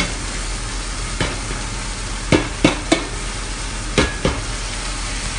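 Onions frying in oil in a pot, sizzling steadily, as soaked mung beans are poured in from a bowl, with a series of sharp knocks, about seven, spread through the pouring.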